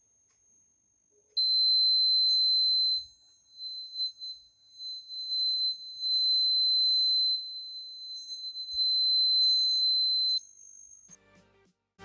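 Piezo buzzer of an Arduino fire alarm sounding one continuous high-pitched tone for about nine seconds, getting louder and softer, set off by a flame heating the NTC thermistor sensor. The tone starts about a second and a half in and cuts off near the end.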